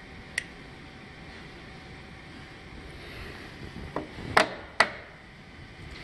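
Sharp metallic clicks of needle-nose pliers working the wires of a lamp connector: one about half a second in, then three close together around four to five seconds in, the last two loudest, over a steady hiss.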